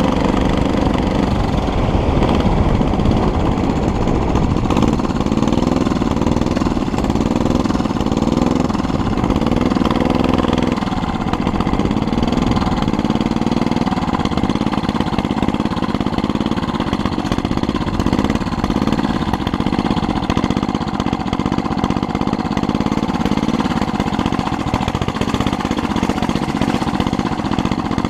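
Small engine of a homemade motorized bicycle running with a rapid, pulsing beat, its pitch rising and falling as the bike is ridden.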